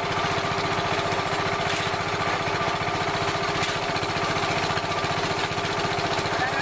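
Small engine of a portable concrete mixer running steadily with a fast, even chug, driving the drum during mixing.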